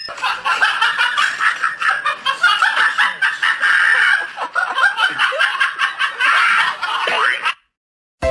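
People laughing in quick, high-pitched bursts, cutting off suddenly near the end.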